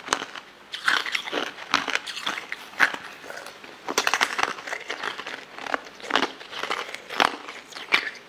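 Close-up eating sounds: irregular crunchy bites and crackling chews of translucent purple moulded domes, with a quick cluster of crunches about four seconds in and single loud crunches near the end.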